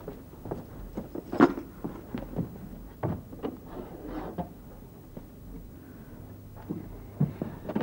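Scattered light knocks and clicks of objects being handled, the sharpest about one and a half seconds in, then a quieter stretch.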